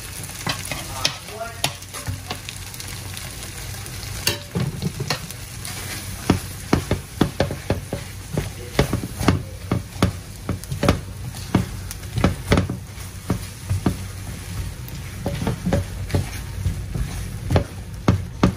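Food frying in a pan with a steady sizzle while a utensil stirs it, knocking and scraping against the pan; the knocks come thicker from about six seconds in.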